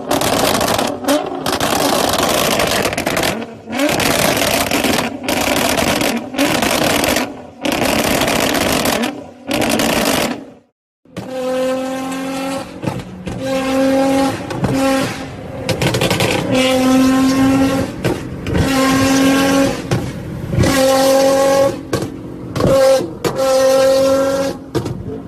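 Nissan GT-R R35's twin-turbo V6 revved hard through a loud exhaust: first a string of short, sharp rev bursts that cut off abruptly, then from about halfway a series of revs held at a steady high pitch, each about a second long with brief drops between them.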